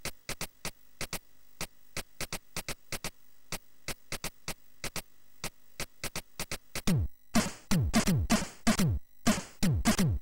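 Commodore 64 SID chip demo music starting up: a steady rhythm of short, sharp noise-channel drum hits plays alone at first, then about seven seconds in, louder drum hits with a quickly falling pitch join the beat.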